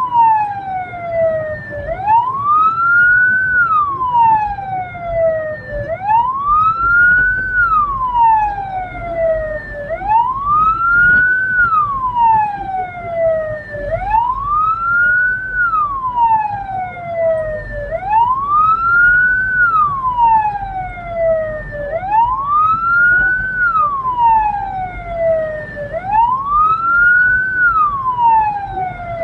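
Hearse's electronic siren wailing, each cycle a quick rise and a slower fall, repeating about every four seconds over a low steady rumble.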